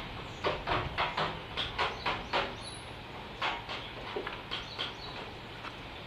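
Birds calling in short, quick notes, several a second at first and sparser later, over a steady rushing background.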